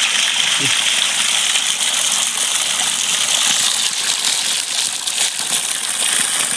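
Spring water pouring in a thin stream from a bamboo pipe and splashing onto rocks and gravel below, a steady hiss.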